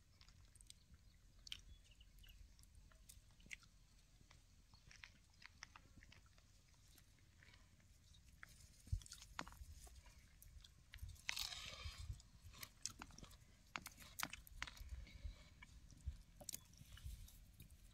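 Faint sounds of eating by hand: chewing, with small clicks and scrapes as fingers mix crumbled bhakri and drumstick amti in a steel plate. The clicks come more often in the second half.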